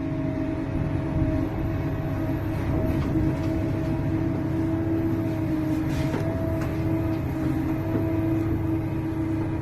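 Large excavator running steadily, its diesel engine rumbling under a constant whine.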